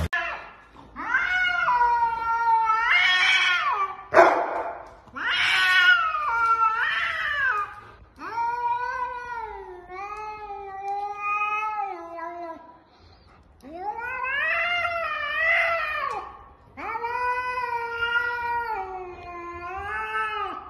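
Cat yowling at a dog that is pestering it: about six long, drawn-out wavering yowls, each rising and falling in pitch, with short pauses between. The sound is an annoyed warning for the dog to back off.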